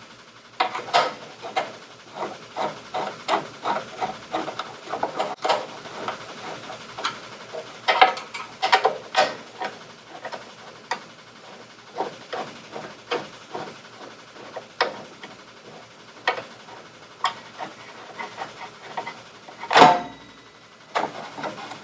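Short metallic clicks and scrapes from a hand tool loosening the M5 metric bolts on a rail, some coming in quick runs of several a second, with a louder knock about twenty seconds in.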